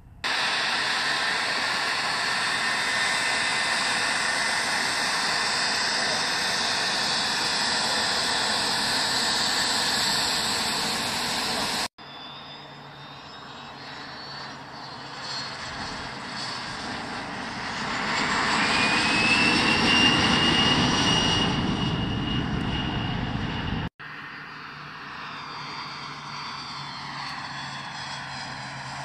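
Jet engines of a Beriev Be-200ES amphibious firefighting aircraft. They run loud and steady for about twelve seconds. After an abrupt cut they swell as the plane passes low over the water, with a whine rising in pitch around twenty seconds in. After another abrupt cut they carry on more quietly.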